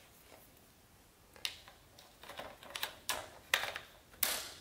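Quick-detach optic mount being seated on a rifle's top rail and locked down: a string of about half a dozen sharp metal clicks and knocks, starting about a second and a half in, the loudest near the end.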